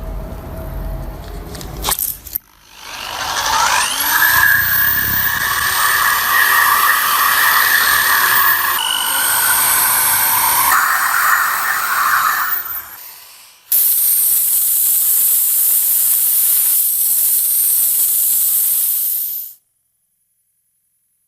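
High-speed electric power tool spinning up with a rising whine, then running steadily against metal for rust removal or polishing, stopping about 13 seconds in. A second loud, hissing stretch of tool work follows and cuts off abruptly.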